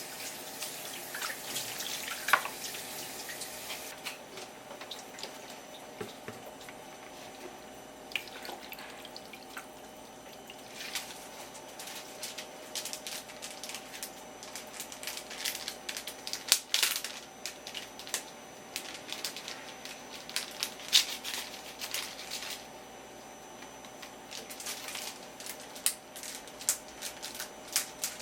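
Kitchen tap running as salted horse mackerel is rinsed, shut off about four seconds in. Then scattered drips and small splashes of water, in clusters.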